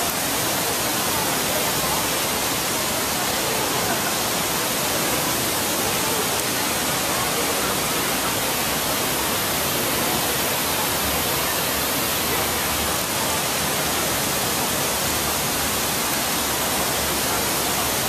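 Steady rush of water falling and splashing into a pond, an even hiss with no breaks.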